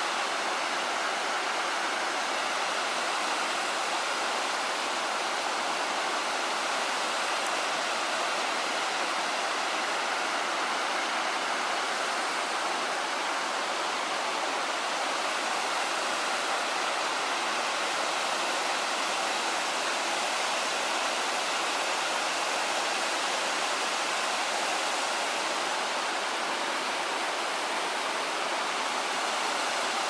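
Ogawa Falls, a waterfall falling in thin streams down a cliff into a plunge pool: a steady, even rush of falling and splashing water.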